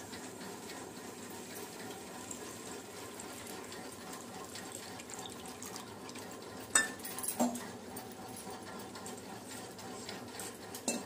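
Fish curry cooking in a steel pot on a gas stove, a steady low hiss, as tamarind water is added. A steel spoon clinks against the pot twice about seven seconds in and once near the end.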